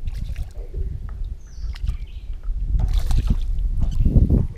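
Low rumble and rustling from the camera being moved about in a small boat, with scattered light knocks and clicks; it gets louder and busier over the last second and a half.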